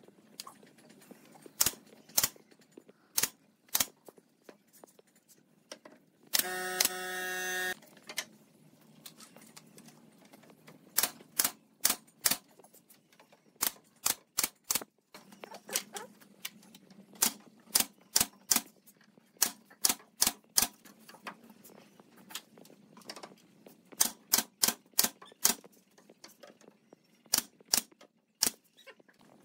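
Pneumatic brad nailer firing nails into a wooden shelf: dozens of sharp shots, often in quick runs of three to six. About six seconds in, a loud steady hum lasts about a second and a half.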